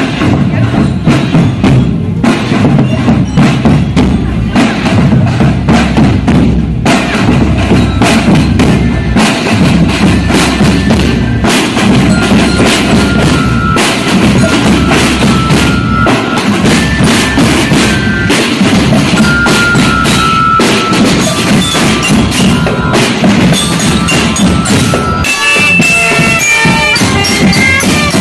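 Marching band drum line playing on the move: bass drums and snare drums beating a steady march rhythm. From about twelve seconds in, a glockenspiel-like bell lyre plays a melody of bright high notes over the drums.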